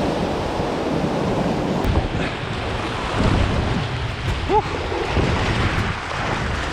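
Fast-flowing floodwater rushing around a paddleboard, with wind buffeting the action camera's microphone: a steady, fairly loud rush.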